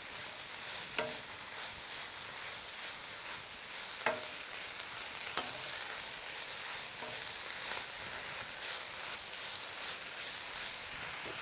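Leafy greens sautéing in sesame oil in a pan: a steady sizzle, with a utensil stirring and knocking against the pan a handful of times.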